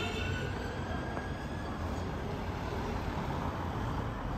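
Street traffic: a steady low rumble of passing vehicles.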